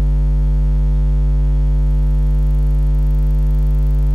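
Loud, steady electrical mains hum carried on the recording: a low drone with a ladder of higher overtones above it, unchanging throughout.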